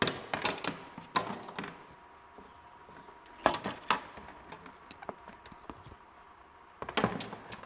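Irregular knocks and taps from body kit parts being handled and set in place. They come in three bunches: near the start, about three and a half seconds in, and near the end.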